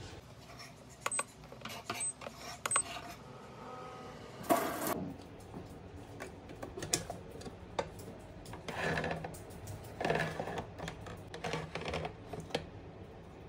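A food dehydrator being handled: three clicks, each with a short high beep, as its control buttons are pressed. A brief rush of noise about four and a half seconds in, then clatters of its door and metal wire trays.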